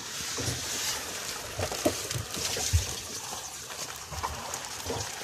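Heavy rain hissing steadily, with scattered drips tapping and splashing on a wet surface.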